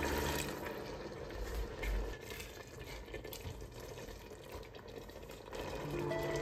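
Water poured from a kettle into a stainless steel pot of fried pork and onions, then a spoon stirring the stew with a few light clicks against the pot. Background music returns near the end.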